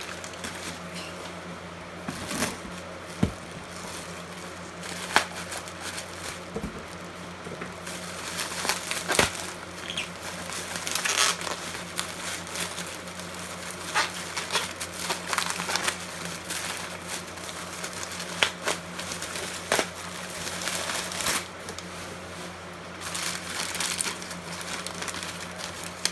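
Packing material crinkling and rustling, with scattered sharp clicks and knocks, as circuit cards are unwrapped and handled. A steady low hum runs underneath.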